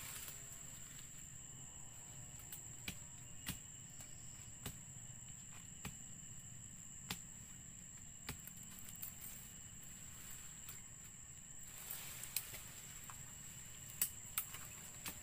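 Insects calling in a steady high-pitched drone, with scattered snaps and crackles of twigs and dry leaves as a person pushes through undergrowth; a few sharper snaps come near the end.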